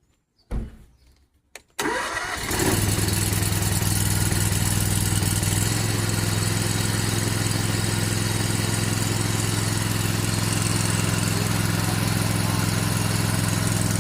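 A freshly rebuilt 16 gallon-a-minute electric soft-wash pump, newly repaired after its seals failed, switches on about two seconds in and runs with a steady hum, pumping on test. A short knock comes just before it starts.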